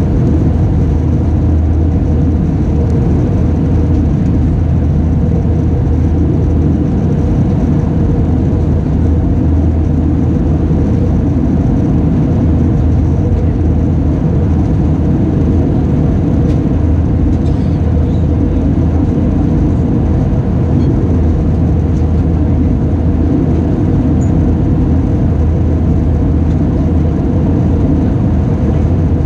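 Airbus A320 cabin noise in flight, heard from a window seat: a steady drone of the engines and rushing air, with a strong low hum underneath and no change throughout.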